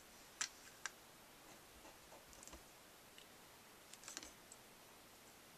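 Near silence broken by a few faint clicks and taps of a glue pen and small cardstock pieces being handled on a craft mat, the clearest about half a second in and a small cluster around four seconds in.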